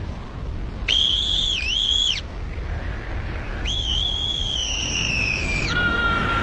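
Three long, high whistling tones over a steady background hiss. The first wavers, dipping twice; the second slowly falls in pitch; the third is lower and holds steady.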